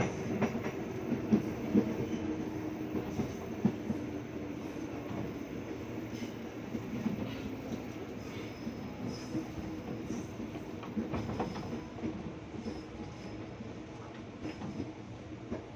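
KRL Commuter Line electric train running on the track: a steady rumble, with a few sharp knocks from the wheels in the first few seconds and lighter clicks later.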